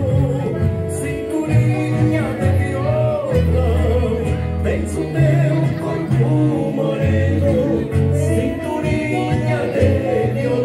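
Music with singing: a voice sings over held chords and a bass line that moves in steps.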